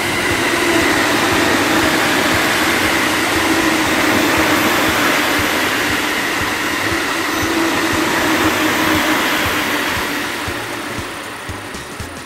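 Electric commuter train running past on the tracks, a steady loud rumble of wheels and running gear that fades near the end as it moves away.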